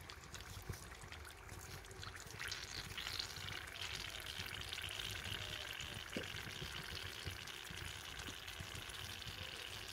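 Hot lard sizzling in a pot of confit duck legs as a leg is lifted out of the fat with wooden tongs. The sizzling hiss grows louder about two and a half seconds in, with scattered light crackles.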